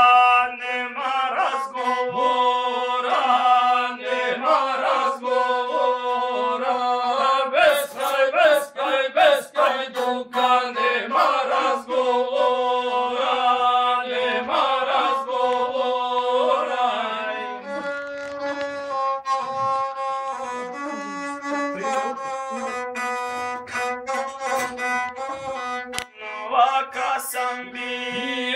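Gusle, the single-string bowed folk instrument, playing without singing: a fast, ornamented melody over a steady low note. The melody turns to longer, sparser notes for several seconds in the second half, then quickens again.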